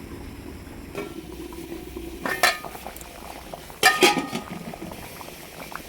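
A metal spoon stirring a pot of chicken and moong dal curry, knocking sharply against the pot twice, with smaller clinks, over the soft bubbling of the simmering curry.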